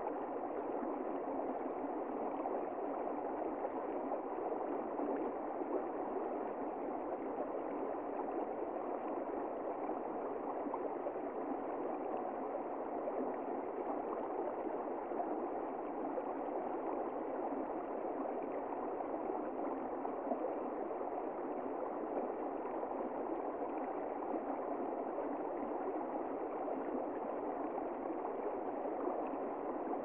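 Shallow stream flowing over stones, a steady, even rush of water.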